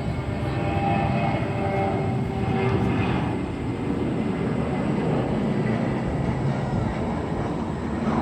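Jet airliner engines running steadily, with a faint whine that fades out about three seconds in.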